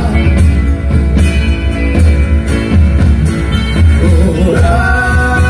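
Live rock band playing: drums and bass keep a steady beat under electric and acoustic guitars. Near the end a voice wavers, then holds a long sung note.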